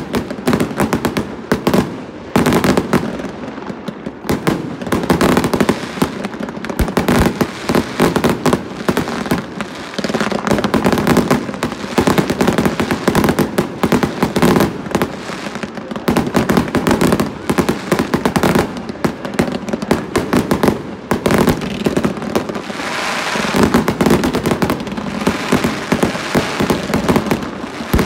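Consumer-grade 1.4G fireworks cakes firing a continuous barrage: many sharp launch and burst reports a second with no pause, mixed with crackle from the bursting stars.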